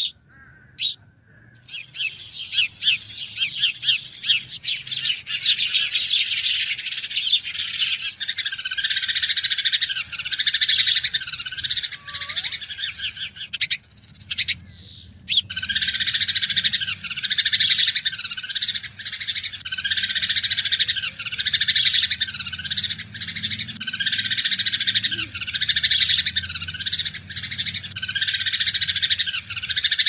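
A dense chorus of birds chirping and tweeting, many quick high notes in a pattern that repeats about every second. It builds up over the first couple of seconds and breaks off briefly about halfway through before going on.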